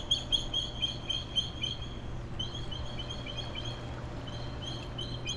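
Bald eagle calling: a rapid series of high, thin chirping whistles, about four a second, in two runs with a short break about two seconds in.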